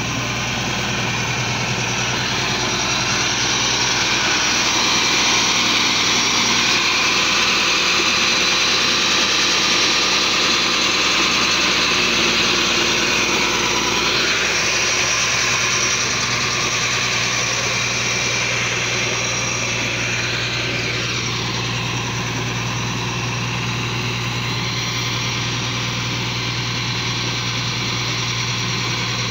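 Tractor diesel engine running steadily, driving a tractor-mounted clay mixer as it churns and extrudes clay. A steady low engine hum under a dense mechanical rumble, a little louder for several seconds in the first half.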